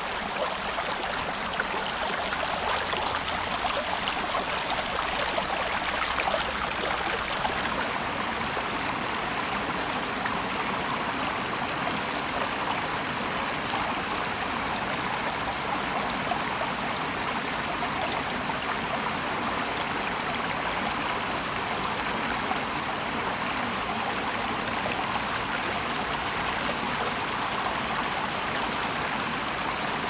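Shallow brook running over stones, a steady rush and babble of water. About a quarter of the way in, a steady high-pitched buzz joins it and holds.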